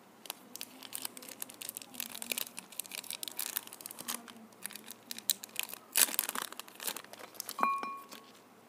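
Crinkling and tearing of a Nestlé Bar One chocolate bar's metallised plastic wrapper as it is torn open and peeled off the bar: a dense run of crackles, loudest about six seconds in, with a short ringing note near the end.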